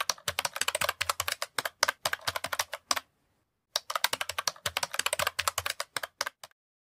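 Computer keyboard typing sound effect: rapid key clicks that pause briefly about three seconds in, resume, and stop about six and a half seconds in.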